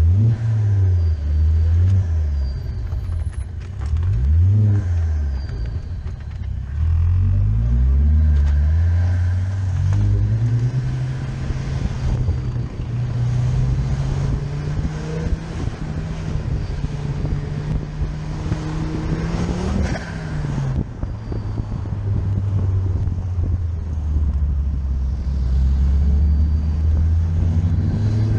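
A car's engine, heard from a camera mounted outside on its bodywork, with road and wind noise. In the first ten seconds its note rises and falls several times. It then climbs steadily for about ten seconds, drops sharply about twenty seconds in, and settles to a lower steady note.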